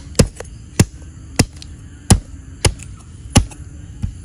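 Meat cleaver chopping through a whole patin-type catfish onto a plastic cutting board: sharp, evenly spaced chops, about one every two-thirds of a second.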